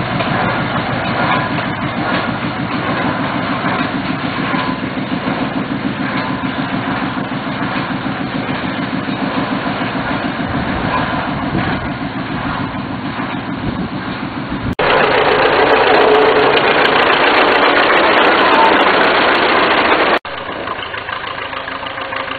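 The TACL rail tractor's engine running with a rapid, even pulse. About two-thirds of the way through, a louder, even rushing noise cuts in abruptly for about five seconds, then cuts back to the engine.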